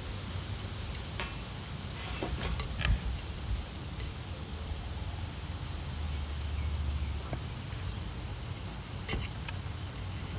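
Hands working potatoes and potting soil: scattered rustles and light knocks, a cluster in the first few seconds and a few more near the end, over a steady low rumble.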